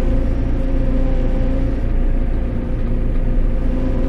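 JCB telehandler's diesel engine running steadily with a constant hum, heard from inside the cab, as the boom hydraulics take the weight of a strapped shipping container for a test lift.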